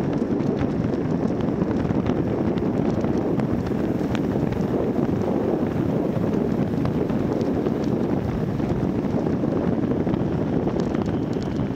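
Steady wind noise buffeting the microphone of a camera carried on a moving bicycle.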